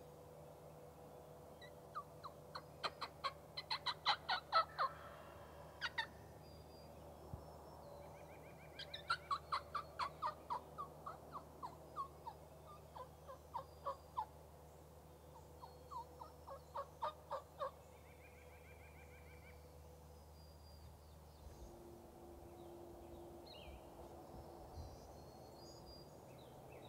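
Turkey yelping and cutting: three runs of quick, sharp notes, the first the loudest about four seconds in, then the woods go quiet.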